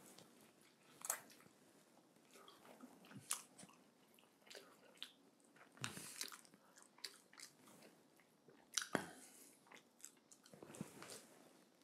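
A man chewing and biting rotisserie chicken close to the microphone: faint chewing broken by irregular sharp smacks and clicks, the loudest about a second in and again around six and nine seconds.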